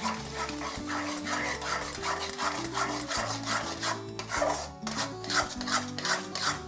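Steel spatula scraping a metal kadai in quick repeated strokes, about two or three a second, stirring and breaking up raw eggs scrambling into onion-tomato masala for egg bhurji.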